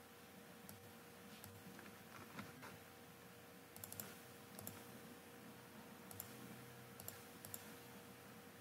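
Faint, scattered clicks of a computer mouse, a few at a time, over a steady low electrical hum.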